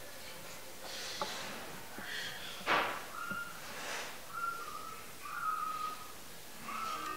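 A man whistling softly: several short whistled notes in the second half, after a few breathy exhales.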